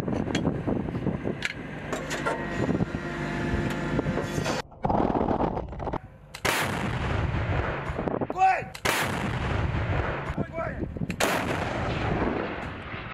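A 2S7 Malka self-propelled gun firing its 203 mm cannon: after a few seconds of the vehicle's engine running, about three heavy shots come, each a sudden blast that trails off.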